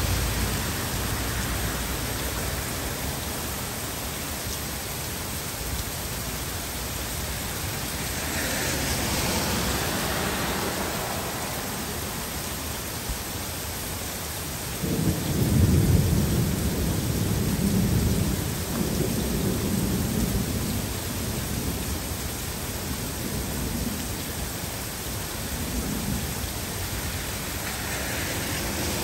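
Heavy rain falling steadily. About halfway through, a roll of thunder breaks in and rumbles on in several swells for about ten seconds.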